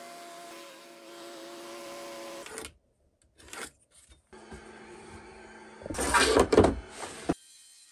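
Benchtop thickness planer motor running steadily with a hum, cut off about two and a half seconds in. Later a table saw runs and cuts through a hardwood strip on a crosscut sled, loudest near the end, and stops suddenly.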